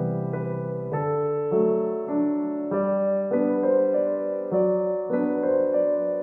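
Background music: a gentle solo piano piece, with notes and chords struck one after another every half second or so.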